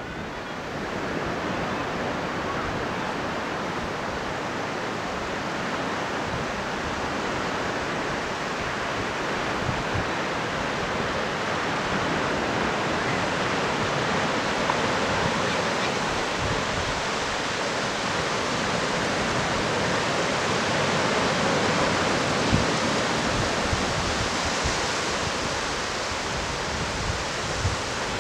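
Steady wash of surf from waves breaking along a shallow sandy beach, swelling and easing a little.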